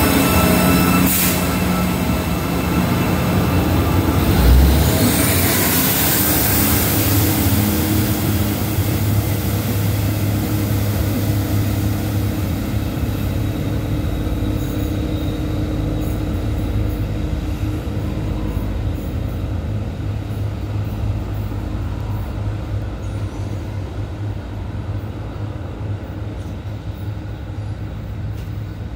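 Diesel railcar express train pulling away: its underfloor engines and wheels running on the rails, with a sharp click about a second in and a low thump about four seconds in. The sound fades steadily as the train draws off into the distance.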